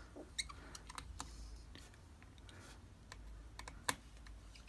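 Faint, scattered small clicks and ticks of a T5 Torx precision screwdriver working the tiny screws out of a MacBook Pro's trackpad cable shield, with one sharper click about four seconds in.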